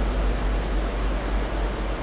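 Steady hiss with a low hum underneath and no distinct events: the background noise of a voice-over recording between spoken lines.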